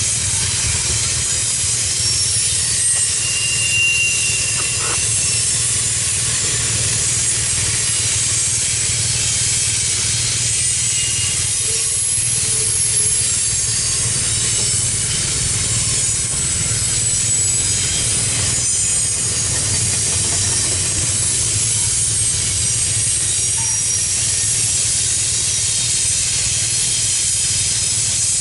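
Double-stack intermodal container train's well cars rolling past: a steady rumble of steel wheels on rail with a constant high hiss, and a few brief faint high squeals.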